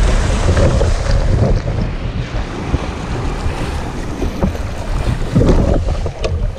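Surf breaking and splashing around a fishing kayak as it is paddled out through the waves, with heavy wind rumble on the microphone throughout.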